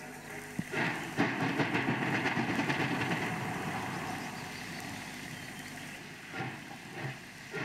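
Steam locomotive working with its train, a busy mix of exhaust puffs, hiss and rail noise that starts suddenly about half a second in, is loudest in the next couple of seconds and fades, with a few separate puffs near the end.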